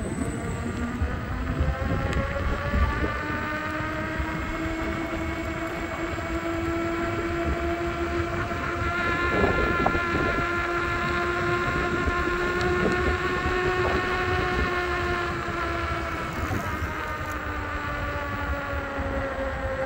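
Veteran Sherman electric unicycle's hub motor whining while riding, its pitch slowly rising with speed and then dropping off again late on, over wind noise on the microphone.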